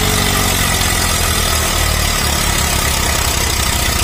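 Eicher 333 tractor's diesel engine running steadily with a low, even pulse, working hard under heavy load as it drags a loaded trolley through mud.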